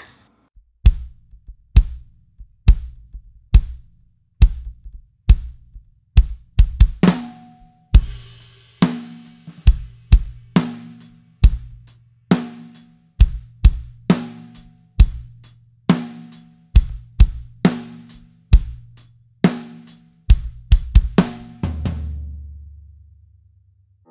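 Drum kit playing a steady groove on a 22-inch kick drum with snare and hi-hat, a strong low kick boom under each beat, and cymbal wash for a bar or so. It ends on a final hit whose low ring dies away over about two seconds.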